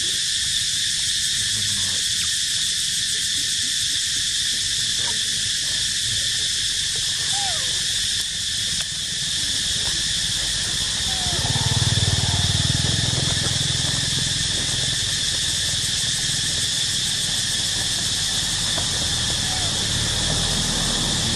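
Steady, unbroken insect chorus, high-pitched and constant, with a few faint short calls scattered through it. A low rumble swells for a few seconds about halfway through.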